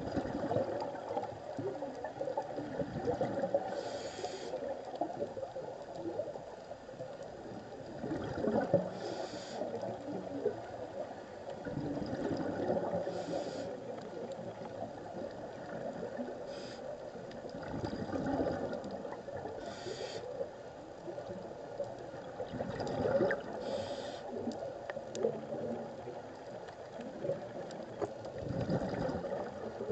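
Scuba diver breathing through a regulator underwater: a short hiss on each inhalation, then a gurgling rush of exhaust bubbles on each exhalation, repeating about every four to five seconds.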